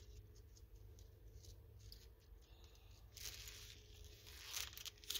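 Faint rustling and crinkling of a clear plastic pack of diamond-painting drills being handled, with louder crinkles about three seconds in and again near the end.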